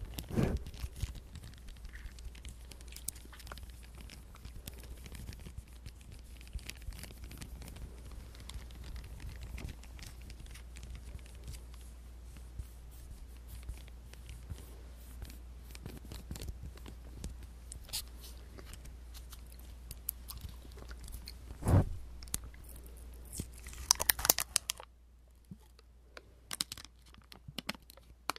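Plastic dessert wrapper crinkled and torn open close to the microphone: dense small crackles and clicks throughout, with a louder burst of rustling a few seconds before the end.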